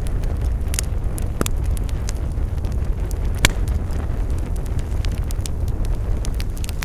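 Campfire crackling: scattered sharp pops and snaps over a steady low rumble, with one louder pop about halfway through.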